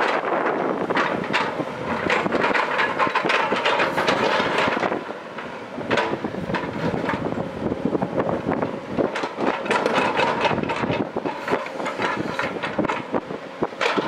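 JCB tracked excavator working loose rocky soil: its engine runs under many sharp knocks and clatters of stones against the steel bucket and each other as it scrapes into the rubble, with a brief lull about five seconds in.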